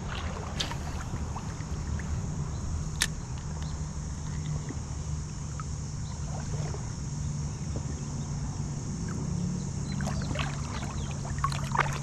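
River current rushing steadily past a wading angler, high and fast after rain, with a low rumble underneath. A single sharp click sounds about three seconds in.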